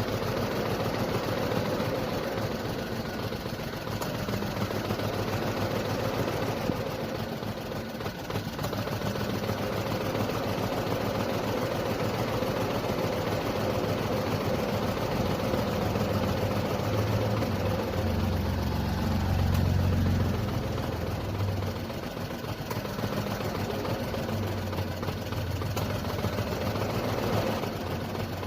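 Car engine idling steadily, with a steady mid-pitched hum over it; the low rumble swells louder for a few seconds about two-thirds of the way through.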